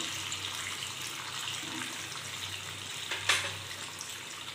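Watery tomato-and-soy sauce sizzling steadily in a hot frying pan, with one short click about three seconds in.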